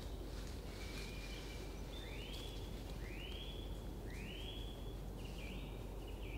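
A bird calling in a series of short notes that rise and then level off, about one a second, with flatter notes near the end. Under it is a steady low hiss and hum.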